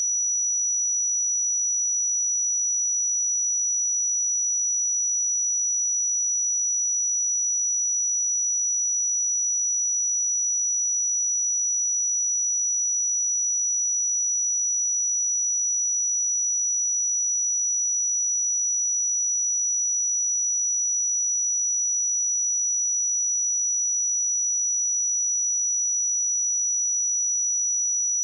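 A pure 5877 Hz sine-wave test tone, one steady high-pitched note that holds constant in pitch and level.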